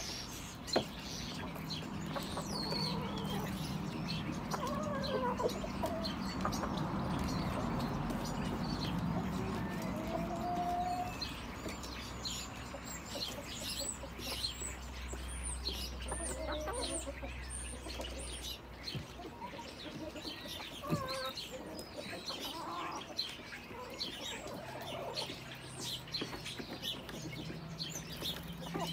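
Backyard chickens clucking softly while pecking at food, with small wild birds chirping in short high notes. A low steady hum underneath stops about two-thirds of the way through.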